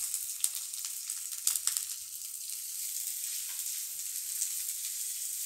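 Chopped onions sizzling in hot oil in a frying pan as they are stirred with a wooden spatula. There are crackles and scrapes through the first two seconds, then a steady sizzle.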